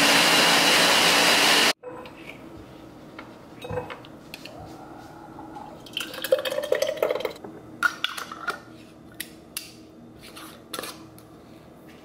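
Ninja blender running at full speed on a batch of salsa, cutting off abruptly about two seconds in. Then thick salsa is poured from the blender pitcher into a glass mason jar, its tone rising as the jar fills, followed by a few sharp clicks and knocks of glass and the metal lid being handled.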